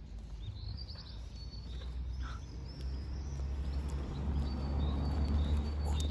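Small birds chirping in the background over a low rumble on the microphone, which grows louder in the second half.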